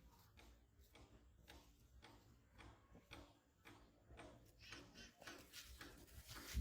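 Near silence with faint, irregular small clicks and ticks.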